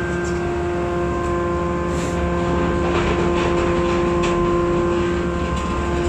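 Hydraulic scrap metal baler's power unit running, a steady mechanical hum with several constant whining tones over a low rumble, with a short metallic clatter about halfway through.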